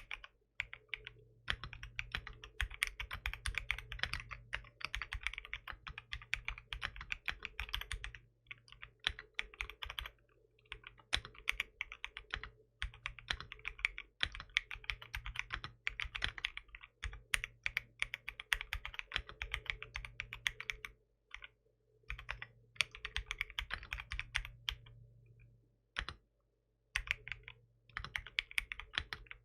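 Typing on a 75% aluminium mechanical keyboard with tactile switches. Fast runs of keystrokes are broken by brief pauses.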